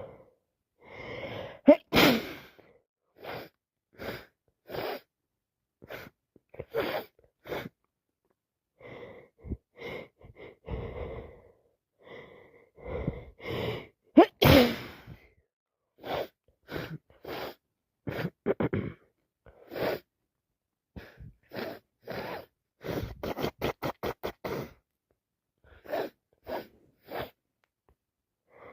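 A person sneezing hard from allergies: two loud sneezes, about two seconds in and again about halfway, with short gasping breaths between them and a quick run of rapid breaths near the end.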